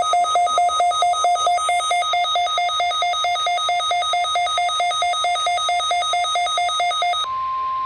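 Weather radio warning alarm test signal: a buzzy electronic two-tone warble flipping rapidly between a low and a high pitch, several times a second, which switches to a steady single high tone near the end.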